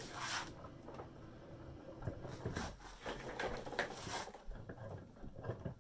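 Handling noise at a bench vise: a brief rustle at the start, then scattered light clicks and rubs as a brass piston and its shaft are set between the vise jaws.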